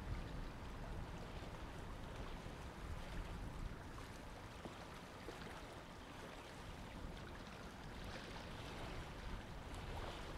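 Faint, steady sound of moving water with wind rumbling on the microphone, the rumble heaviest near the start.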